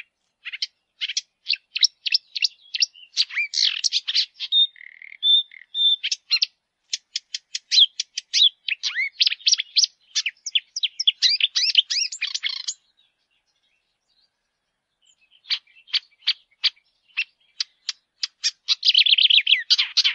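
Small birds chirping: quick runs of short, high calls, with a pause of about two seconds past the middle and a denser burst of chirping near the end.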